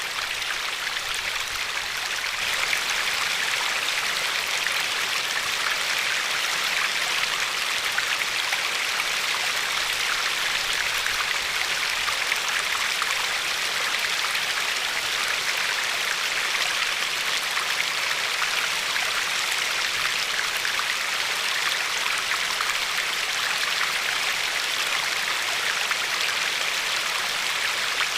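Glacier-fed river flowing steadily, water lapping and trickling over a pebble shore in a continuous bright rushing with fine splashy crackle.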